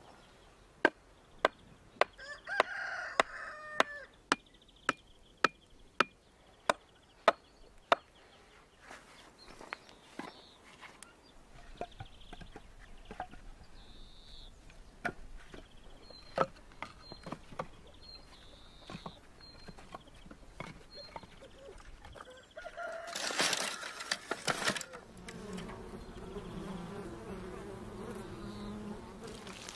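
About a dozen sharp, evenly spaced knocks over the first eight seconds, with a rooster crowing among them. Then split firewood logs clunking as they are stood upright against one another. Near the end, after a brief loud noise, honeybees buzz at their hives.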